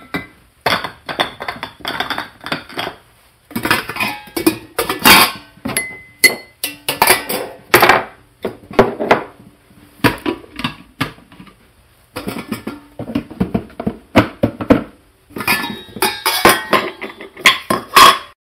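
Kitchen utensils and pots clattering and clinking in bursts of rapid knocks, with a few short pauses between bursts and now and then a brief ringing note.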